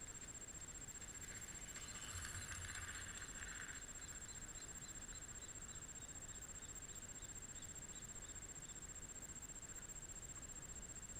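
Mountain bike passing along a dirt trail: a brief rush of tyre noise about two seconds in, then a run of faint, evenly spaced ticks, about three a second, that die away.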